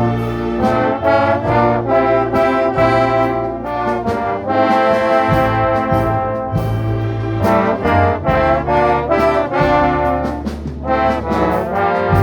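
Orchestra with a prominent brass section, trombones and trumpets, playing a melody in held notes over sustained bass.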